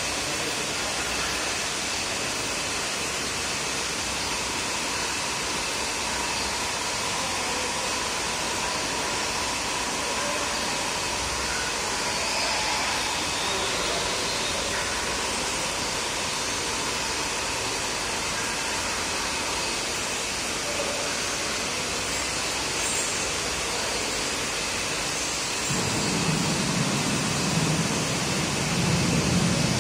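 Steady rushing background noise, with a louder low rumble in the last few seconds.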